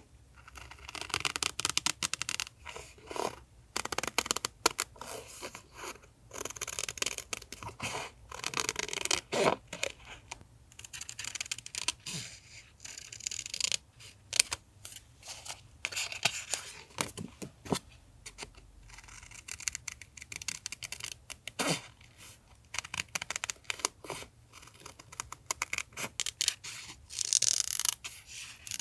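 Paper being handled and worked for a collage: irregular rustling, scraping and crinkling with many short sharp clicks and snips.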